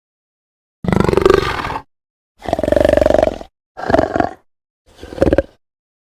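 Angry wolf snarling and growling in four separate bursts, each under a second long, with dead silence between them.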